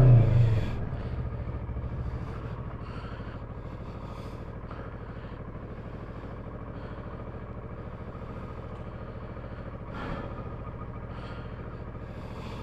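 Motorcycle engine running, loudest in the first second as it eases off, then settling into a steady low drone, with a slight swell about ten seconds in.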